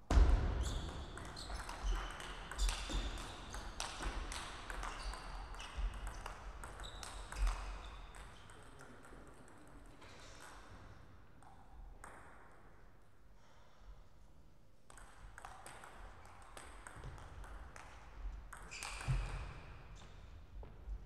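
Table tennis rally: the celluloid ball clicking quickly back and forth off the rubber paddles and the table for about eight seconds, ending when the point is won. After a quieter gap, scattered ball clicks start again a few seconds before the end as play resumes.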